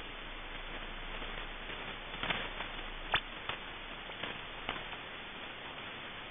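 Shortwave receiver audio: a steady static hiss with a scattering of sharp clicks between about two and five seconds in, the loudest just after three seconds.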